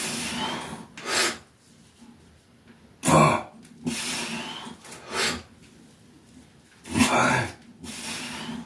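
A man's forced, effortful breathing while pressing about 80 lb of resistance bands overhead: a sharp, cough-like exhale with each repetition, three times about every three to four seconds, each followed by a longer, softer breath.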